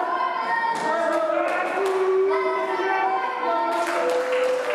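A wrestling crowd, children's voices among them, chanting in drawn-out sung notes, with a few knocks from the ring or stamping feet.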